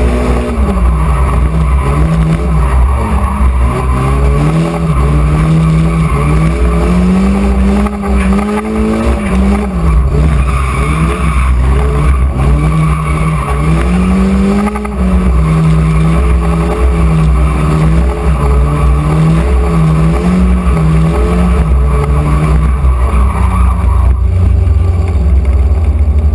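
Nissan 240SX's turbocharged SR20DET four-cylinder, heard from inside the cabin, revving up and down again and again through a drift run, with the tyres squealing underneath. About 23 seconds in, the squeal fades and the revs drop to a low, steady drone.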